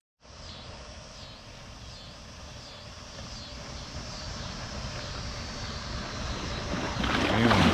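Twin outboard motors of a cabin boat running steadily as it passes on the river, the engine sound mixed with water noise and slowly getting louder. Near the end the boat's wake starts washing and splashing against the rocky bank, the loudest part.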